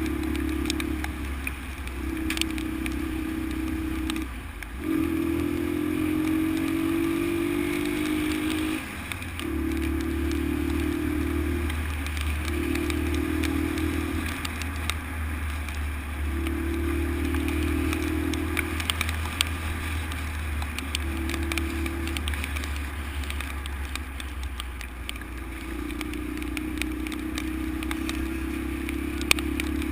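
Honda XL125's single-cylinder four-stroke engine running under way, the throttle opened and shut again and again, so the engine note comes and goes every few seconds and rises once as it pulls. A steady low rumble runs underneath, with scattered light clicks.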